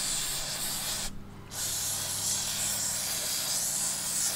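Aerosol carburetor cleaner spraying in two long hisses, with a short break about a second in, washing oil off a transmission drive pulley.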